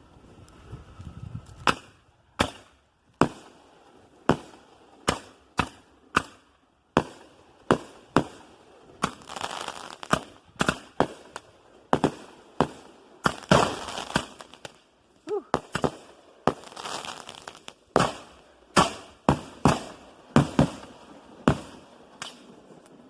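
Aerial firework shells fired in quick sequence from fused mortar racks: a string of sharp bangs from launches and bursts, about one to two a second, with stretches of crackle between some of them.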